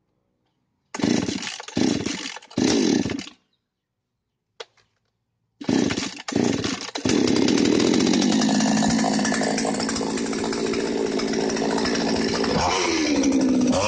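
Ogawa Pro two-stroke petrol chainsaw being started for a test run. About a second in it fires in three short bursts and stops. About six seconds in it catches and keeps running, its speed falling over several seconds, then rising and falling in revs near the end.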